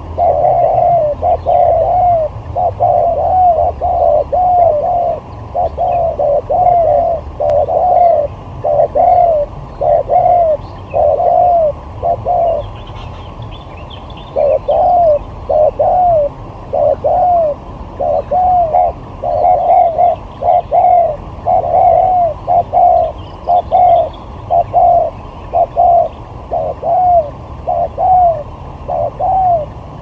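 Spotted doves cooing in quick runs of short, arched coo notes, about three a second, with a pause of a couple of seconds midway. Faint chirps of small birds sound behind them.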